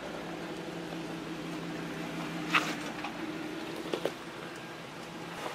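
Lifted Jeep wagon's engine running at low, steady revs as it crawls over rocks, with one sharp knock about two and a half seconds in and two quick knocks near four seconds.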